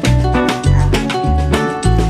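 Background music with a steady beat: low bass notes about twice a second under pitched instrument notes and percussion.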